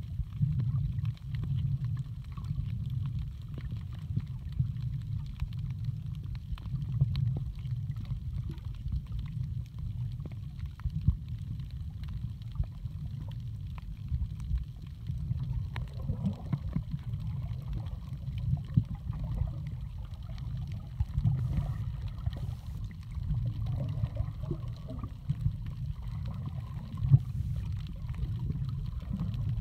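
Water sound picked up by a camera held underwater while snorkelling: a steady muffled low rumble with scattered faint clicks and crackles, and more irregular swishing water noise in the second half.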